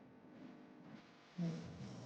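A woman snoring in her sleep: a soft breath, then a sudden loud, low, buzzing snore that starts about one and a half seconds in.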